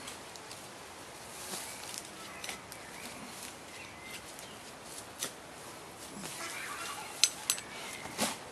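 A hand trowel digging strawberry plants out of garden soil, scraping and crunching through earth and roots with scattered clicks. Two sharp clicks come late on, then a rustling burst near the end as a rooted clump is pulled free.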